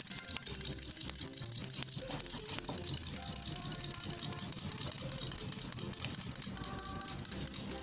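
Toy chick's walking mechanism clicking rapidly and steadily as the chick moves along a tiled floor.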